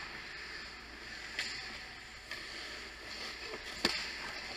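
Muffled ice-rink sound: a steady hiss with a few sharp knocks from play on the ice, the loudest about four seconds in.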